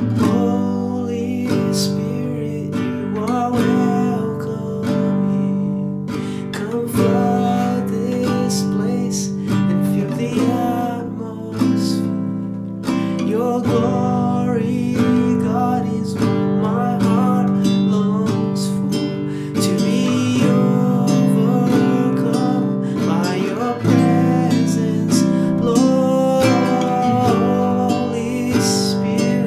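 A man singing while strumming a nylon-string classical guitar.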